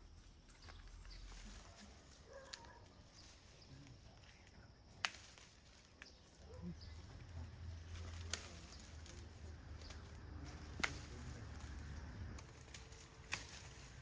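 Pomegranates being picked by hand, with five sharp snaps a couple of seconds apart, like stems breaking off, over a faint outdoor background.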